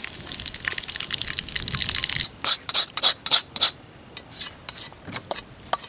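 Fish frying in oil in a metal wok over a wood fire: a dense sizzle and crackle for about two seconds, then a string of short, sharp separate bursts as the wok is handled and tilted.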